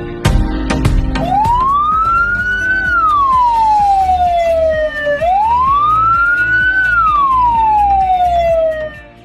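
Electronic ambulance siren in its slow wail pattern: two long cycles, each rising for about a second and a half, then falling slowly for about two and a half seconds. The first starts about a second in, over quieter background music.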